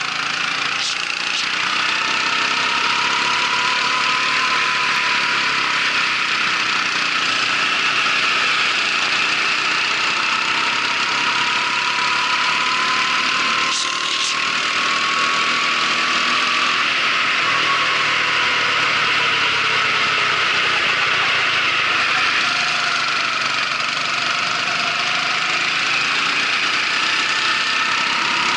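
M4 racing kart engine running at speed, its pitch rising and falling as the kart accelerates and slows through the lap, over a steady hiss.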